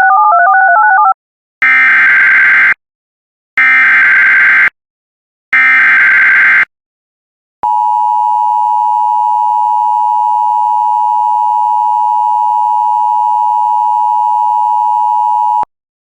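Emergency Alert System alert opening. It starts with a brief warbling two-note chirp, then three one-second bursts of SAME header data screech about two seconds apart. The steady two-tone EAS attention signal follows, held for about eight seconds and cut off abruptly.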